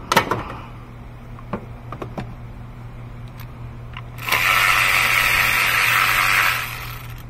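Sharp clicks and light knocks of plastic and metal engine parts being handled as an ignition coil connector and bracket are worked loose, over a steady low hum. About four seconds in, a loud steady whirring hiss runs for about two and a half seconds and cuts off.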